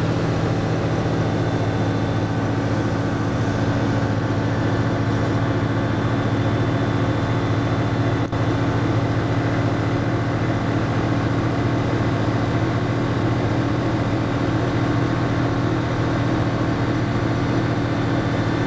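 Ultralight aircraft's engine and propeller running steadily, heard from inside the cockpit, with a momentary break about eight seconds in.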